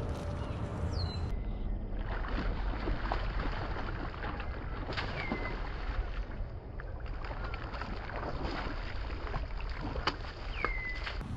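Steady outdoor rush of wind on the microphone, with a bird giving short down-slurred whistled calls about five seconds in and again near the end.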